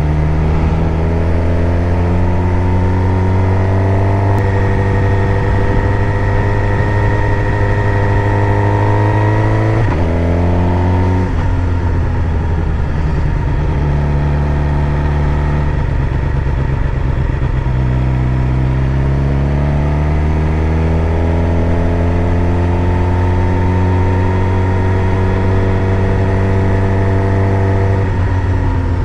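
Suzuki GSX-R 750's inline-four engine under way. Its pitch climbs slowly for about ten seconds, drops sharply, runs lower for several seconds, then climbs again before another sharp drop near the end.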